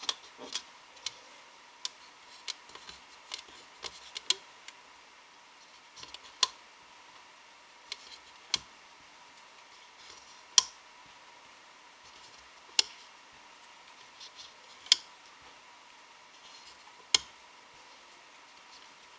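Sharp clicks of rubber loom bands snapping against the plastic pegs of a loom as they are pulled over by hand, several close together at first, then about one every two seconds.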